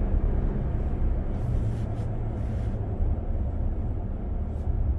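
Steady low road and tyre rumble inside the cabin of a 2025 Ram 1500 pickup on the move.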